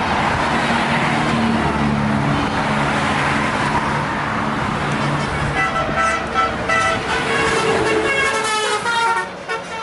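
Heavy vehicle passing with engine and road noise, then from about halfway through a bus's telolet horn, a multi-tone musical air horn, sounds a run of short notes at changing pitches.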